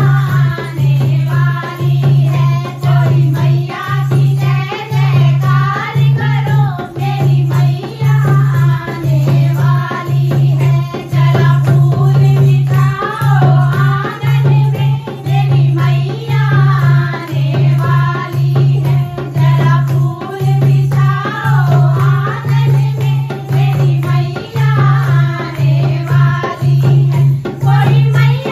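Hindi devotional bhajan: singing over a steady deep drum beat, about one drum stroke a second.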